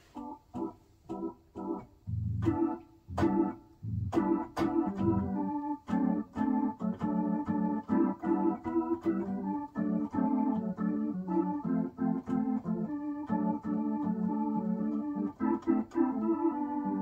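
Hammond-style drawbar organ played live: short, detached chords for about the first two seconds, then fuller held chords over a bass line, with sharp key clicks at the note starts.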